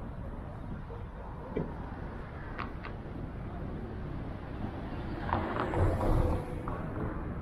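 Outdoor city ambience: a steady low rumble, with a few faint clicks about two and a half seconds in and a louder swell around six seconds in.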